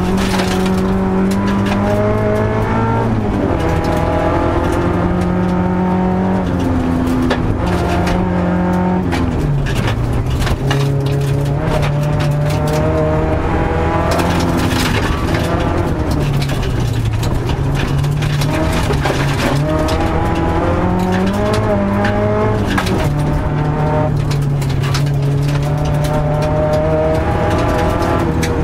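Rally car engine heard from inside the cabin, revving up and dropping back over and over as it is driven hard through the gears on a gravel forest stage. Steady road and tyre noise runs underneath, with a constant crackle of stones and gravel striking the car.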